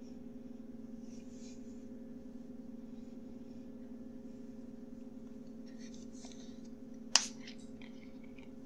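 Steady low hum with a faint hiss, broken by a single sharp click about seven seconds in.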